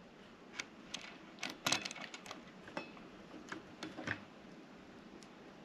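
Faint, scattered small clicks and light taps as a heat-set-insert press is lowered to push a hot brass insert into a 3D-printed part. The clicks stop after about four seconds.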